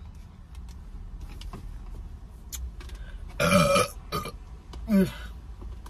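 A woman burping twice: a longer, loud burp about three and a half seconds in, then a shorter one about a second later.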